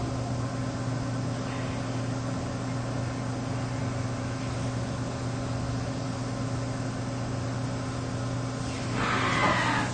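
CNC vertical machining center running a long drill into a billet aluminum engine block, with a steady machine hum. About nine seconds in, a louder rushing sound comes in, with a falling pitch.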